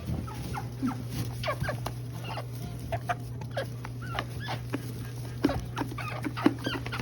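Silkie bantam chickens calling with many short clucks and chirps, most falling in pitch, in quick succession, over a steady low hum.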